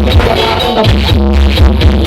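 Loud electronic dance music blasting from a large carnival sound system, with a heavy low bass and a pounding kick drum about twice a second.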